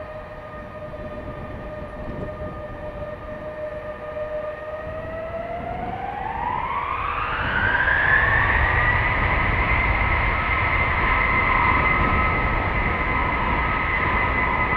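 C-5A Galaxy's four TF39 turbofan engines running with a steady high whine, then spooling up from about five seconds in. The whine glides up in pitch and gets louder, and a low rumble builds beneath it as thrust comes up for the take-off.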